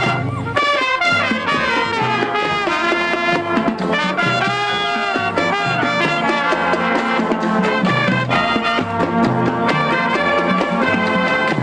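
Live band with brass instruments playing an upbeat tune, with a steady bass line under the horns.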